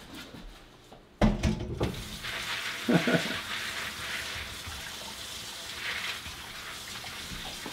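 Kitchen sink tap running steadily over pumpkin seeds being rinsed in a colander. A few knocks come as the water starts, about a second in.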